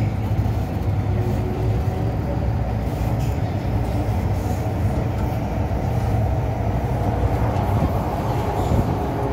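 MTR M-Train subway car running through the tunnel, heard from inside the car: a steady, loud rumble of the train in motion.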